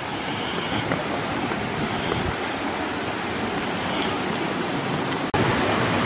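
Steady rushing of Dudhsagar waterfall, an even roar of falling water. It breaks off for an instant a little before the end and comes back slightly louder.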